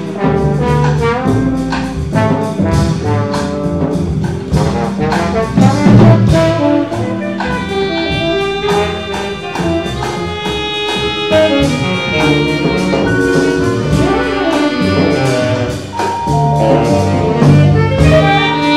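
Small jazz ensemble playing live: trombone, saxophone and trumpet over vibraphone, drum kit and double bass. The trombone drops out partway through, leaving saxophone and trumpet in front.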